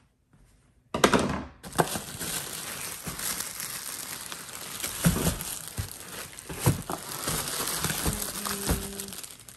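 Clear plastic bag crinkling steadily as it is handled and lifted out of a cardboard box, with a few dull knocks. It starts suddenly about a second in.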